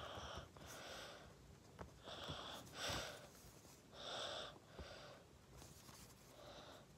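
Faint, short scratches of a pencil tip on paper, one short stroke about every second, as small hatching marks are drawn.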